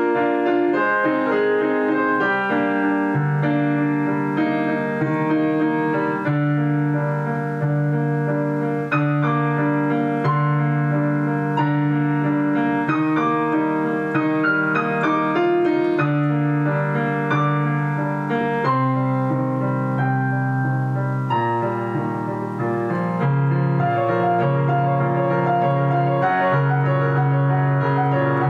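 Digital piano playing a slow solo piece: long held low notes under a melody of shorter notes and chords.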